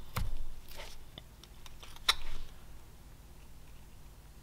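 Whittling knife slicing into basswood: a few short cutting strokes, the loudest about two seconds in, then a pause.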